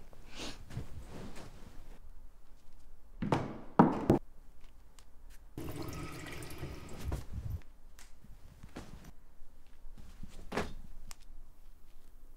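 Two loud, dull knocks, then a kitchen tap running into a sink of dishes for about two seconds, and a single sharp knock near the end.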